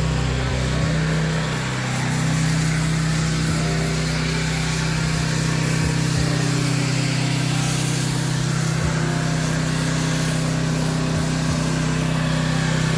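Honda GX390 gas engine of a pressure washer running at a steady speed, with a hiss of water spraying throughout as the downstream chlorine mix is applied.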